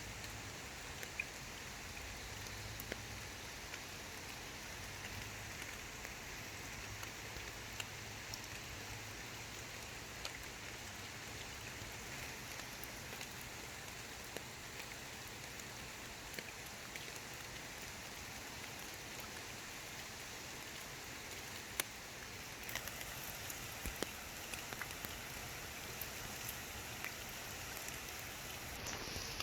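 Raindrops falling onto water: a steady hiss of light rain with many separate drops ticking, a little denser near the end.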